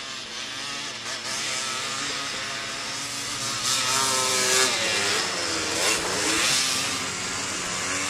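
Snow quads' engines running and revving as two riders ride across snow, the pitch rising and falling. The revving is loudest about halfway through.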